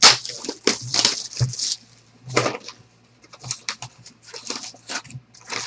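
Foil trading-card pack wrappers being torn open and crinkled by hand, in a series of crackling bursts, the loudest lasting the first couple of seconds.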